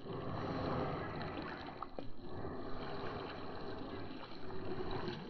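Soft swishing and dripping of water as an open-top yabby lift net is pulled up through the creek by its cord.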